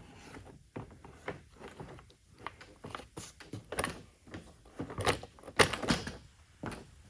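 Underbody belly pan being handled and offered up into place beneath the car: a string of irregular knocks and clatters, loudest about five to six seconds in.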